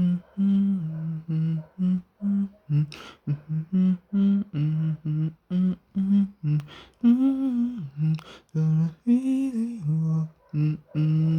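A man humming a melody alone in short, separate notes that step up and down between a few pitches, with a couple of longer, wavering notes about seven and nine seconds in.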